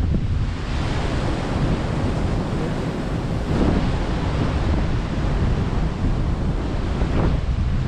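Heavy sea swell surging and breaking, with wind buffeting the microphone; the surf swells up twice, about halfway through and near the end.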